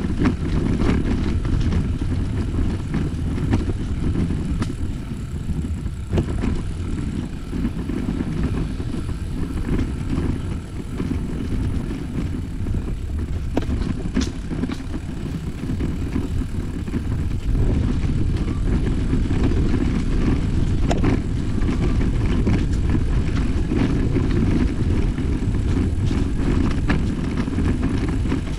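Wind buffeting the microphone while on the move, a steady low rumble, with a few faint clicks.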